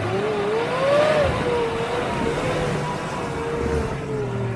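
Off-road 4x4's engine revving hard under load. The pitch climbs over the first second, then holds and slowly sags.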